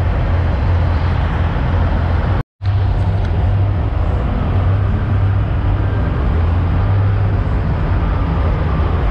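Big-rig diesel engines idling, a steady low rumble. The sound cuts out for a moment about two and a half seconds in.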